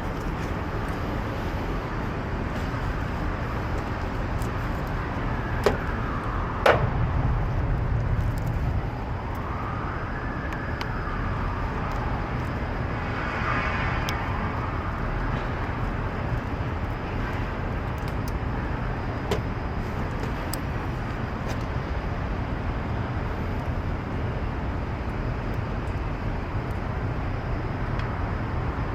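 Steady city traffic noise with a few sharp clicks and knocks. A faint tone glides slowly up and down a few times in the first half.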